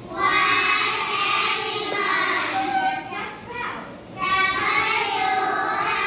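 A class of young children singing together in unison: sung phrases with two short breaks, about three and four seconds in.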